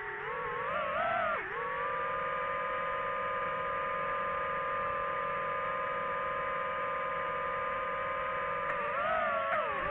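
Drone propeller motors humming at a steady pitch, which wavers up and down in the first second or so and again near the end as the motor speed changes.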